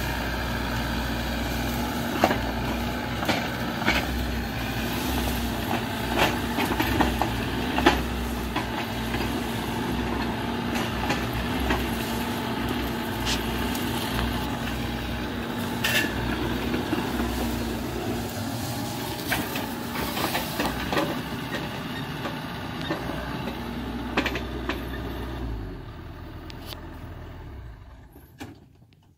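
Mini excavator's diesel engine running steadily, with repeated sharp metal clanks and knocks as the machine works. About three seconds before the end the engine sound drops, then it fades almost to silence.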